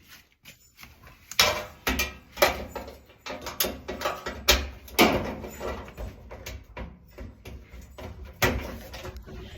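Irregular knocks, rattles and scrapes of hands and tools working on a clothes dryer's sheet-metal housing and heater area.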